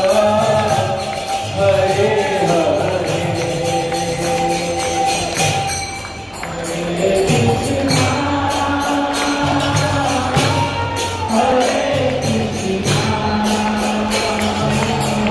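Devotional chant music: group singing in long, gliding melodic phrases over jingling hand percussion, with a brief dip in level about six seconds in.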